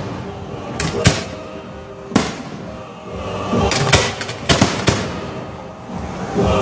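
Aerial firework shells bursting: about six sharp bangs at irregular intervals, with background music playing throughout.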